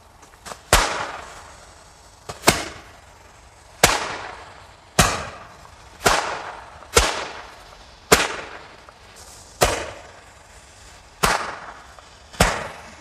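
Italian-made Knallfrosch (jumping jack firecracker) going off: a string of about ten sharp bangs, roughly one to one and a half seconds apart, each followed by a fading hiss.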